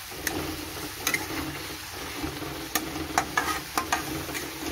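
Metal spatula stirring and scraping in a metal kadai, with sharp clinks against the pan several times, while onions, tomatoes and ginger-garlic paste fry in oil with a steady sizzle.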